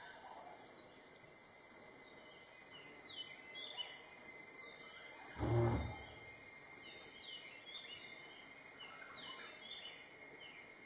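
Birds calling in the background with many short, falling chirps, and one short low thump a little after halfway that is the loudest sound.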